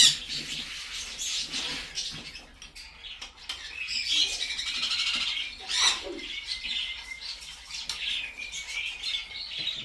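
Baby macaws calling with high, scratchy squeaks and squawks during hand-feeding, with one louder call about six seconds in.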